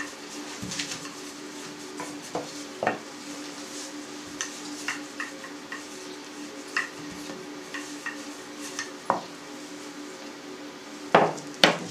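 Wooden rolling pin rolling out dough on a floured board, with scattered light clicks and taps as it works. Two louder knocks come about half a second apart near the end.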